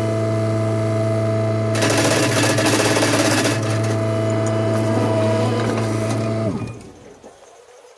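Takeuchi compact track loader's diesel engine running steadily, with a louder rushing stretch about two seconds in as the machine works. About six and a half seconds in the engine is shut off and spins down to a stop.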